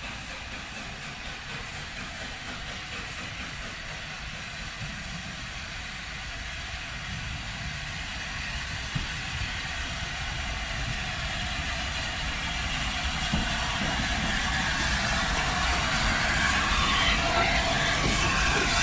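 Steam-hauled train approaching along the line, growing steadily louder as it nears.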